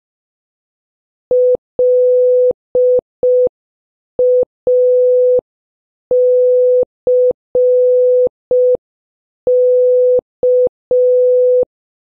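Morse code practice tones: a single steady mid-pitched beep keyed in short dits and long dahs at a slow pace. It spells out dit-dah-dit-dit, dit-dah, dah-dit-dah-dit, dah-dit-dah, which is L-A-C-K, the word "lack".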